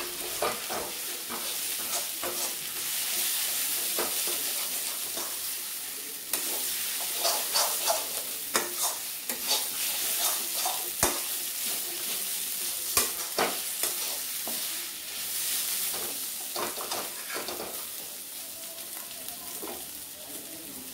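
Onion and spice masala with cashews and raisins sizzling in oil in a metal kadai, stirred with a flat metal spatula that scrapes and knocks against the pan at an irregular pace. The sizzle eases toward the end.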